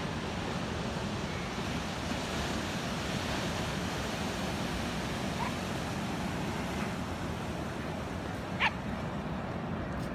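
Ocean surf breaking and washing on a sandy beach as a steady rushing noise. A brief high-pitched cry sounds once, sharply, about eight and a half seconds in, with a fainter short one a few seconds earlier.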